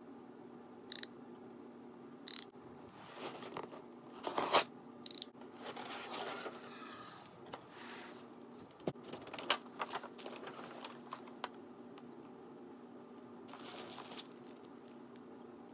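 Cardboard shipping box being torn open: a few short, sharp rips in the first five seconds, then the flaps and kraft paper inside being opened with rustling and light knocks, and tissue paper crinkling near the end.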